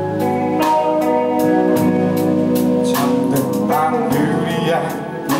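A live indie rock band playing: electric guitars and bass over a drum kit with steady cymbal and drum hits, and a sung vocal line about four seconds in.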